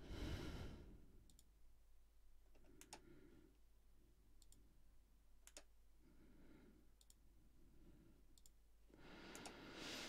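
Near silence with a few faint, sharp clicks spaced irregularly through it and soft breathing between them.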